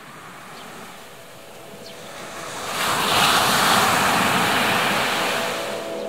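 Ocean surf washing onto a beach: a steady rush of breaking waves that swells to its loudest about three seconds in as a wave breaks, then slowly eases.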